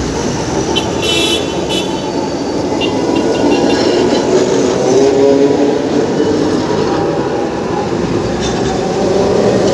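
Alexandria Raml-line tram rolling past close by, a steady rumble from its wheels on the rails with a humming tone that rises as it moves on. A short high squeal comes about a second in.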